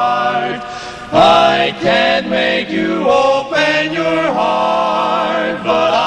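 Barbershop quartet of four men's voices singing a cappella in close four-part harmony, moving from chord to chord with a louder entry about a second in and a chord held for about a second near the end.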